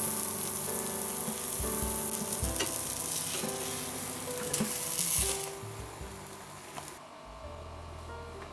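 A kefir-batter flatbread frying in an oiled pan, sizzling steadily with a few light clicks; the sizzle fades out from about five seconds in. Soft background music plays under it.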